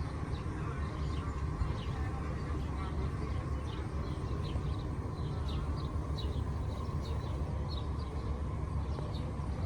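Small birds chirping over and over, short high chirps scattered irregularly, over a steady low rumble.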